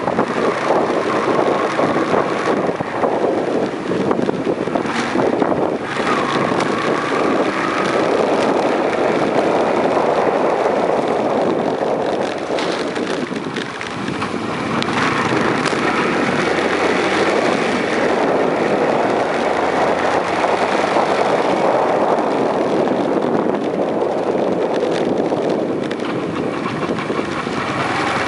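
Wind rushing over the microphone of a moving Yamaha Enticer 125 motorcycle, with the bike's small engine running underneath. The rush eases briefly about fourteen seconds in, then picks up again.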